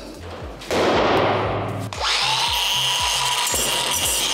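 A steady power-tool sound, like a grinder running on metal, begins about two seconds in, after a loud rushing noise. Under both runs a music track with a steady beat of about two thumps a second.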